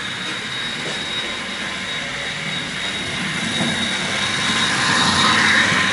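OO gauge model diesel locomotives running on a test track: electric motor and wheel-on-rail noise with a steady high whine, growing louder as the train comes close, loudest about five seconds in.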